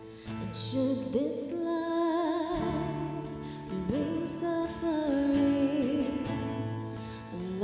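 A solo voice singing a slow hymn over held instrumental accompaniment, in phrases with a short breath about a second before the end.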